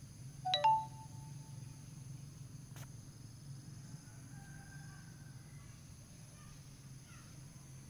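Insects in the grass trilling steadily at a high pitch, with one short, ringing chirp about half a second in.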